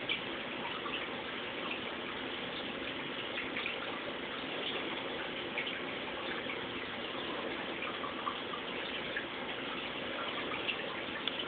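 Aquarium sponge filter bubbling steadily, air rising up its lift tube and breaking at the surface in a continuous stream of small pops and gurgles.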